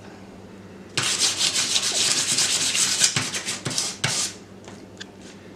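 Small finned heat sink rubbed back and forth on sandpaper: a run of rapid scratchy sanding strokes for about three seconds, starting about a second in, then a few light scrapes and ticks. The base is being roughed up to key it for thermal adhesive.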